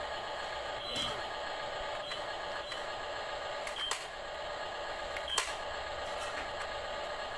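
Radio-controlled model excavator running: a steady mechanical whine from its small electric motors, with a few sharp clicks, the loudest about five seconds in.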